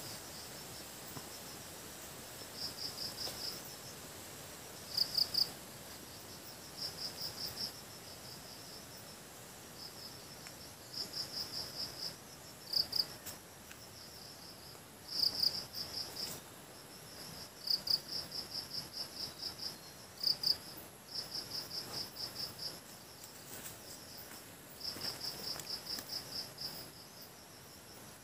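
Insects chirping: short trains of quick high-pitched pulses, each about a second long, repeating every second or two, over a faint steady high-pitched insect drone.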